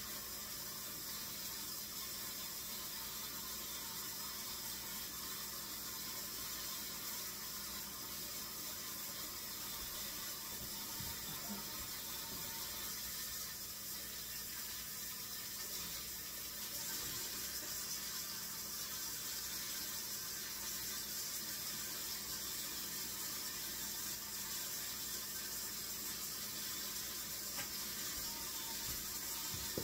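Kitchen tap running steadily into the sink while raw chicken legs are rinsed under it, the water a little louder from about halfway through.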